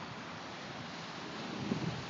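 Wind buffeting the microphone over a steady hiss, the low rumbling gusts growing stronger near the end.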